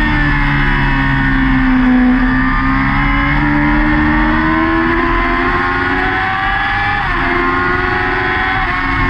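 Yamaha R6 600cc inline-four race engine heard onboard at racing speed. The engine note falls for the first couple of seconds, then climbs steadily as the bike accelerates. About seven seconds in there is a quick upshift, and the note climbs again.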